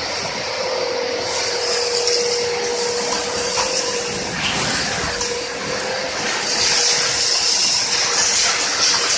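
Two-motor 2.2 kW industrial vacuum cleaner running continuously: a steady loud rush of air with a constant whine underneath.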